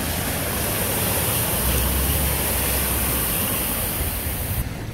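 A car driving through a flooded street, its tyres hissing and spraying through standing water. The noise swells with a low rumble about two seconds in, then fades as the car passes.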